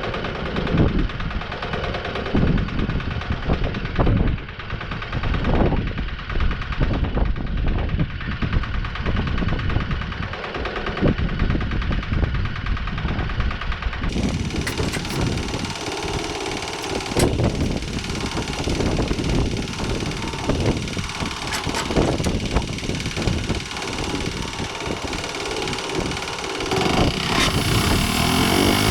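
Wood-Mizer LT15 portable sawmill's engine running steadily, with irregular knocks and thumps throughout. Near the end the engine gets louder.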